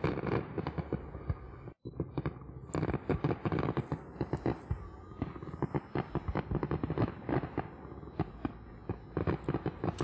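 Fireworks display: dense, rapid salvos of bursting shells and crackling reports, broken by a momentary dropout about two seconds in.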